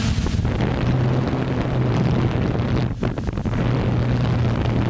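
FPV drone's electric motors and propellers running as a steady low hum under heavy wind rush on the onboard camera's microphone, dipping briefly about three seconds in.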